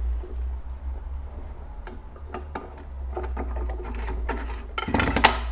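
A Microjig MATCHFIT dovetail clamp being worked loose by hand: scattered small mechanical clicks that come faster as it goes, ending in a loud close cluster of rattling clicks about five seconds in. A steady low hum runs underneath.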